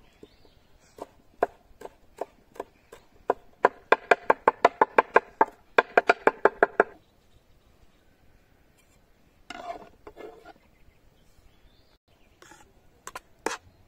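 Kitchen knife chopping fresh herbs on a wooden cutting board. Spaced single chops give way to a fast, even run of rapid strokes from about four to seven seconds in. A brief rustle follows, then a few more sharp taps near the end.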